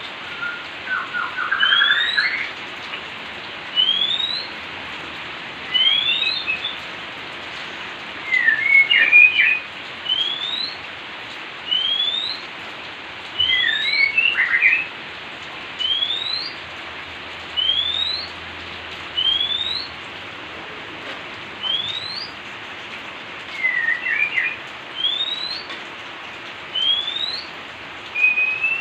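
Oriental magpie-robin calling: a rising whistled note repeated about once every two seconds, with a few short scratchy chattering phrases mixed in, over a steady hiss of falling rain.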